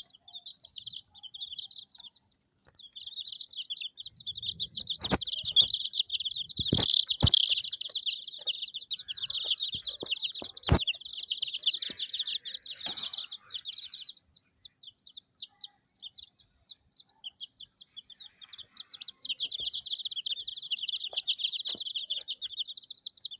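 A group of baby chicks peeping: a dense, continuous stream of short high-pitched cheeps that thins out a little past the middle and builds up again toward the end. A few sharp knocks come in the first half.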